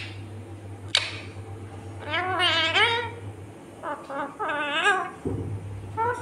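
Rose-ringed parakeet giving two warbling, wavering chattering calls, with a sharp tap about a second in, like its beak knocking on the metal door, over a steady low hum.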